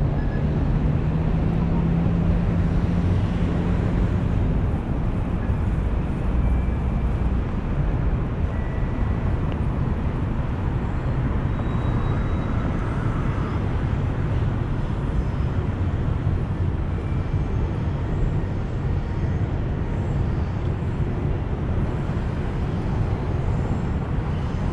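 Street ambience with steady traffic rumble from passing vehicles, and a low engine hum for the first few seconds.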